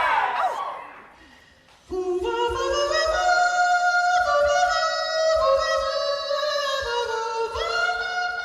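Audience cheering and screaming that dies away over the first second or two, then a cappella voices singing long held notes together in chords, stepping from note to note, with a high ornamented lead voice on top; a new sung phrase comes in near the end.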